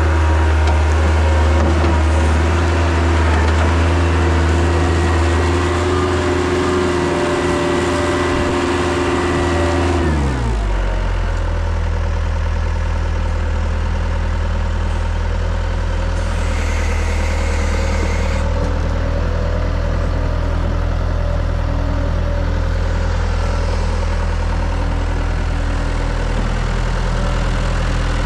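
Bobcat 853 skid steer's diesel engine running at raised throttle, then throttled down to a steady idle about ten seconds in. A brief hiss comes for a couple of seconds a little past the middle.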